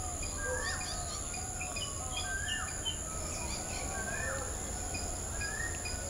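Several small birds chirping and calling over one another in garden vegetation, with a steady high-pitched insect drone beneath them.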